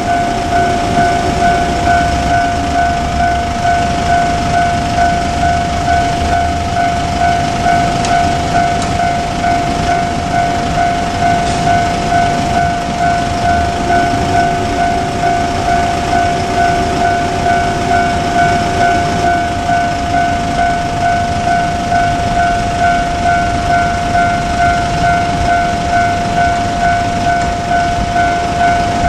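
Level-crossing warning bell ringing in a steady rhythm throughout. Under it, the diesel engines of KiHa 47 railcars rumble, strongest at the start and again about halfway through.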